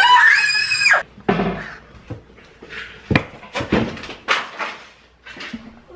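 A person screams, high-pitched, for about a second as a frying pan catches fire, and the scream cuts off abruptly. Then comes a scatter of sharp knocks and clatters.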